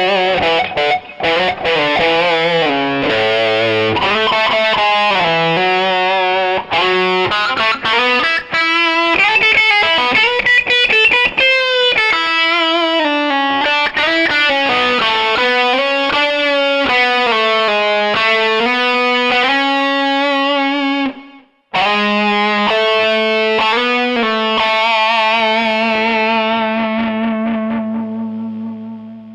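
Electric guitar played through a Takky Drive 2 Extreme overdrive pedal: a distorted single-note lead line with wavering vibrato on held notes. It breaks off briefly about three-quarters of the way through, then ends on sustained notes that fade out near the end.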